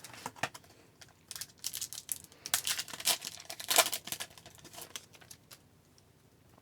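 A hockey card pack wrapper being torn open and crinkled, with a rapid run of crackles that stops about two-thirds of the way through.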